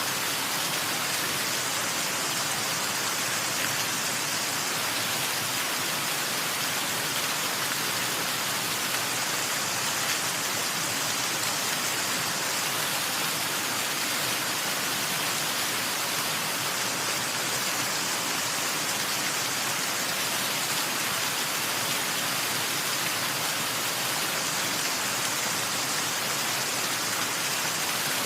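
Waterfall: a steady rush of falling water with no breaks or changes.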